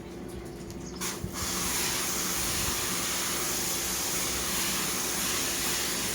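Pressure-washer spray jet starting about a second and a half in and then running as a steady hiss, over a low machine hum.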